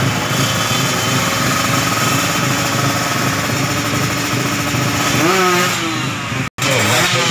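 Drag-race motorcycle's engine running at high revs while held on the start line, with a few quick revs rising and falling in pitch from about five seconds in. The sound drops out for a split second near the end.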